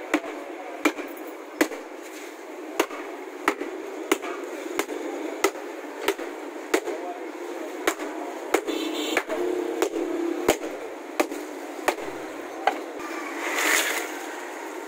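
Metal blade chopping chunks of ice in a steel pot of iced drink, sharp knocks at a steady pace of about three every two seconds, with a short rush of noise near the end.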